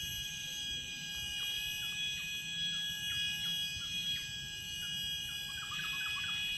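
Steady high-pitched drone of forest insects, with scattered short falling chirps of birds and a quick run of chirps near the end.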